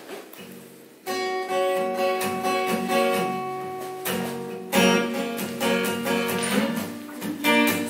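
Solo steel-string acoustic guitar played live, with picked notes and chords left to ring. It comes in about a second in, after a moment of quiet room sound.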